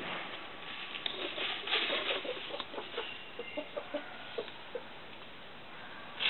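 Chickens clucking: a run of short clucks from about a second in until near the five-second mark, with some rustling alongside.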